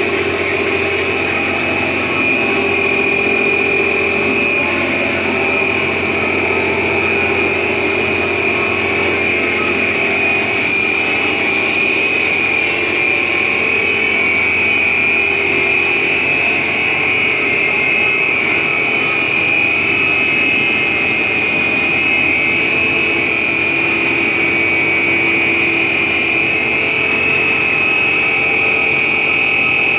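A 2400 mm stretch film machine running steadily: a continuous mechanical hum with a strong, steady high-pitched whine over it.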